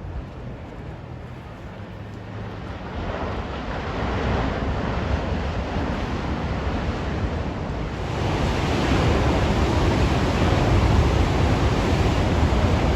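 Heavy ocean surf from big waves breaking, with wind buffeting the microphone. The rush swells about three seconds in and again, more strongly, past the halfway point.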